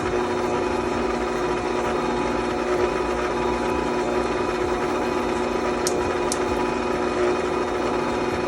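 Electric stand mixer motor running steadily at a constant speed, with two light ticks about six seconds in.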